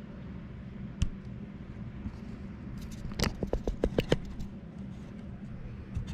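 Small metal bicycle hub parts clicking and tapping while the hub is put back together: one sharp click about a second in, then a quick run of about seven or eight ticks a couple of seconds later, over a steady low hum.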